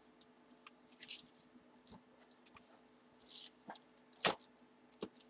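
Hands handling and folding a baseball jersey and its packaging: scattered soft rustles and crinkles with small clicks, the sharpest click about four seconds in.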